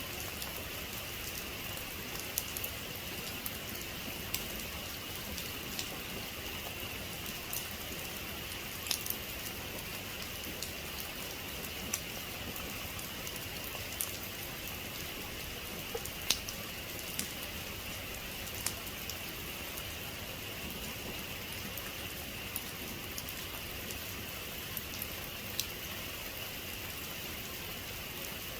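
Steady rain, an even hiss, with single sharp drops ticking on a hard surface every second or two.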